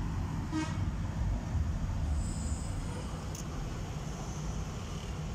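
Sany SY215C crawler excavator's diesel engine running with a steady low rumble as the machine moves on its tracks.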